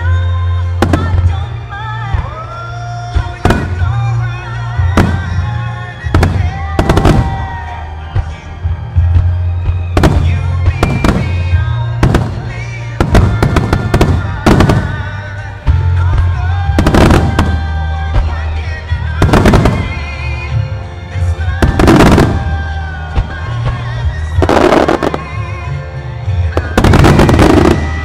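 Starmine firework shells bursting in quick succession, a sharp boom every one to three seconds with a heavier cluster of bursts near the end, over loud background music with a heavy bass.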